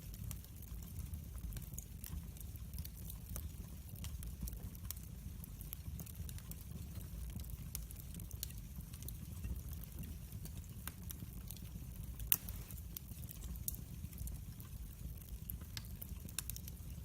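Wood fire burning in a fireplace, crackling. It gives a steady low rumble with scattered sharp pops and snaps, and one louder pop a little past the middle.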